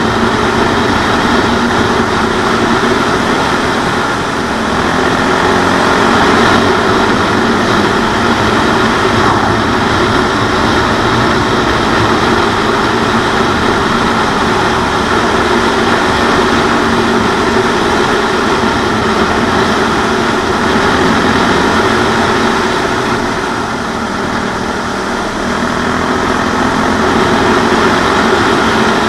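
CCM 644 R30 supermoto's single-cylinder Suzuki-based engine running at road speed under steady throttle, mixed with the rush of wind over a helmet-mounted microphone. The engine eases off briefly twice, about four seconds in and again past the twenty-second mark.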